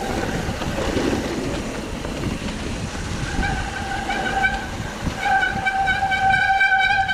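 Mountain bike descending at speed: wind rushing over the camera mic and tyres rumbling on the trail. About three seconds in, a steady, high, buzzing whine from the bike joins it, breaks off briefly, then holds to near the end.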